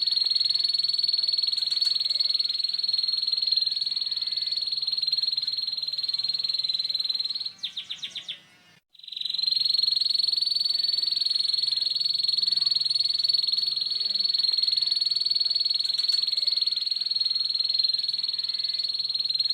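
Canary singing a long, continuous, rough rattling trill in the ngeriwik style. About eight seconds in the trill slows into a handful of separate notes and stops for about a second, then starts again.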